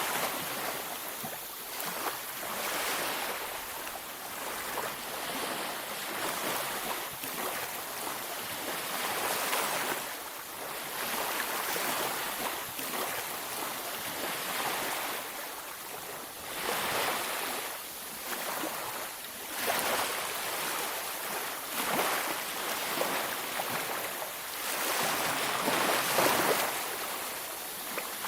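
Sea waves breaking and washing up a beach, a continuous surf hiss that swells and ebbs every few seconds.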